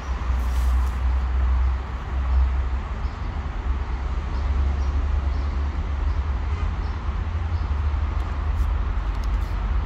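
Cats eating dry kibble, with faint crunching ticks about twice a second, under a steady low rumble.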